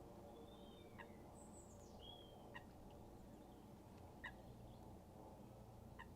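Faint bird calls: four short, sharp calls about a second and a half apart, with a few thin high whistles and one falling whistle between them.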